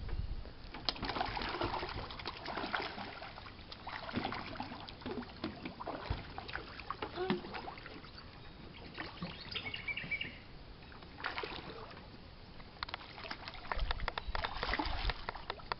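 A shoal of silver perch splashing at the water surface as they feed on bread and pellets: a busy patter of many small splashes, heaviest near the start and again near the end.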